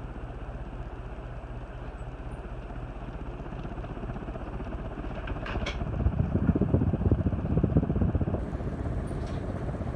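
Tuerk Type C antique ceiling fan running at full speed, a steady low motor hum. About six seconds in, a louder rough rumble rises over the hum for about two seconds, then settles.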